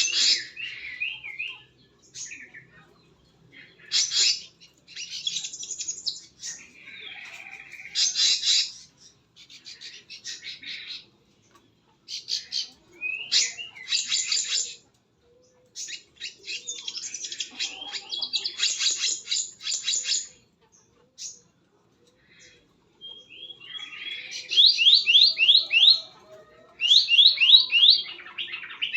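Birds calling in a series of high chirping bursts. Near the end come loud runs of quick, repeated sliding notes.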